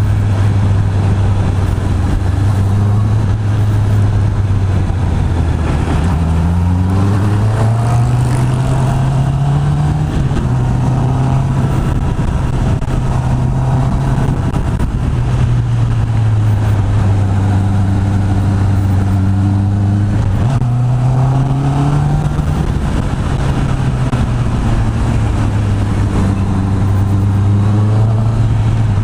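Honda CB650R's inline-four engine through its stock exhaust while riding, the pitch climbing as it pulls through the gears, holding steady, dropping as it eases off past the halfway point, then rising again as it speeds up near the end.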